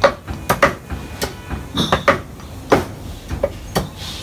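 Meat cleaver chopping mutton on a thick wooden chopping block: a quick, uneven run of sharp chops, about two or three a second.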